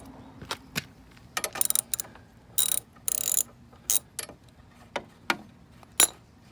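Metal tools and small parts being handled: sharp clicks and clacks at uneven spacing, with two short rattling bursts near the middle.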